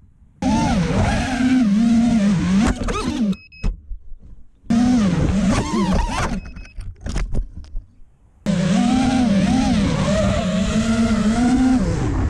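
Brushless motors of an FPV racing quadcopter whining, their pitch swinging rapidly up and down with the throttle. The motors cut out near the start and again about three and a half seconds in, sputter unevenly for a few seconds, then run steadily from about eight and a half seconds in, with short high beeps in the quiet gaps.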